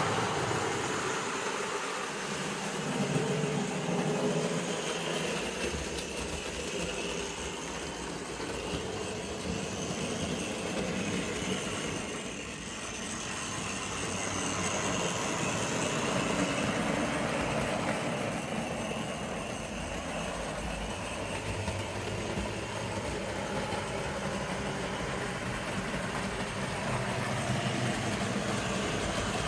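Tri-ang model locomotive running round the layout with its train of wagons: a steady mechanical whir and rattle from its electric motor and wheels on the track, swelling and fading a little as it goes.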